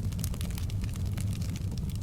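Open log fire burning in a fireplace: a steady low rumble from the flames with many small crackles and pops, several a second.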